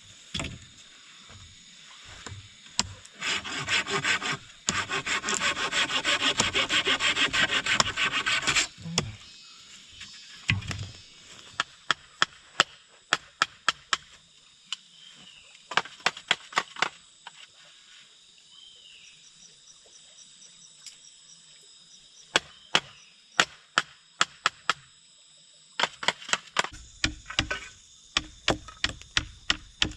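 Bamboo being cut with a blade: a spell of fast back-and-forth sawing strokes, then scattered sharp chops and whittling cuts as a fish-spear shaft is shaped.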